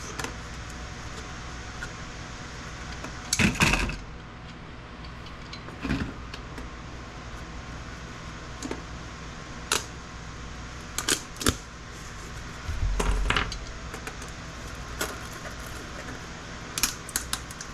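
Scattered sharp clicks and clinks of small components being pried and snapped off a circuit board, some single and some in quick clusters, with a duller thump past the middle, over a steady low hum.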